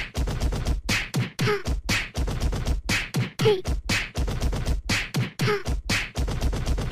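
A fast, even rhythmic beat: sharp percussive hits over a steady deep bass, with a short falling tone about every two seconds, in the manner of beatboxing.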